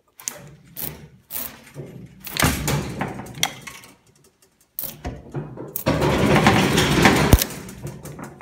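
Metal bus bar on a Tesla battery module being pried and peeled up with pliers. Its glued and soldered joints to the cell terminals give way in a run of clicks and short scrapes, then a longer, louder tearing scrape about six seconds in that cuts off sharply.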